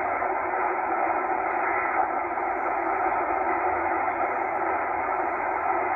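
Steady shortwave static hissing from a Tecsun H-501X receiver in upper sideband as it is tuned across the 9 MHz aeronautical band, with no station coming through. The hiss stops sharply above about 2.5 kHz, at the edge of the sideband filter.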